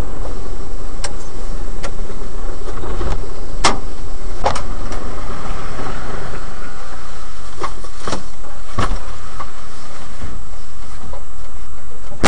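A truck's engine idling, heard from inside the cab as a steady, loud hum with a low rumble. Several sharp clicks or knocks come at uneven intervals, and a loud bang lands right at the end.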